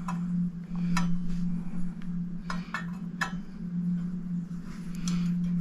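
Light clicks and clinks of a screwdriver and small metal clock parts being worked loose, about half a dozen sharp ticks spread through, over a steady low hum.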